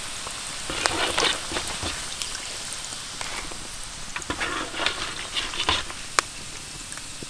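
Pork belly pieces deep-frying in a wok of hot oil: a steady sizzle, with louder crackling about a second in and again from about four to six seconds, and a sharp click a little after six seconds.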